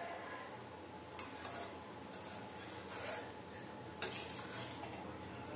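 Steel spoon stirring thick kadi with pakoras in a steel kadai, clinking sharply against the pan about a second in and again around four seconds, over a steady hiss.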